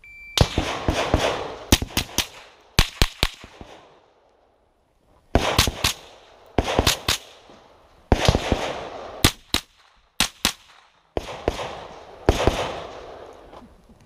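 A shot timer's short high beep, then a rifle fired in quick pairs and short strings with brief pauses between them, each shot followed by a ringing echo.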